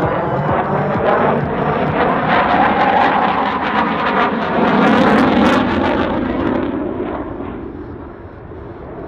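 CF-18 Hornet's twin General Electric F404 turbofan jet engines passing by with a sweeping, phasing sound. It is loudest about five seconds in, then fades as the jet moves away.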